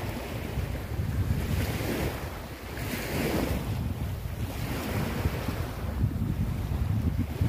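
Wind buffeting the phone's microphone as a heavy low rumble, over small waves washing onto a sandy shore in swelling surges.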